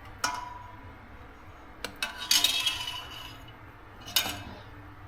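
Metal kitchen utensils and cookware clinking: a sharp ringing clink, a small tick, a longer clatter about two seconds in, and another clink near the end.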